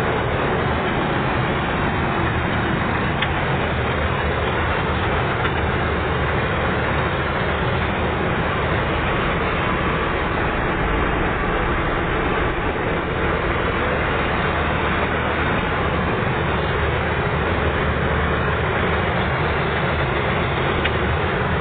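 Chardikala combine harvester running with a steady, unbroken drone.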